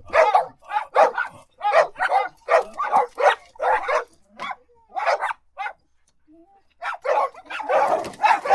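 Dogs barking in quick, repeated barks. They stop for about a second after the middle, then start again with barks crowding and overlapping.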